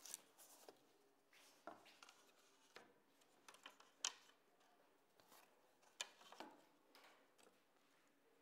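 Thin wooden veneer strips being handled and laid down on a wooden workbench: scattered light clacks and sliding scrapes, the sharpest clack about four seconds in and another about six seconds in.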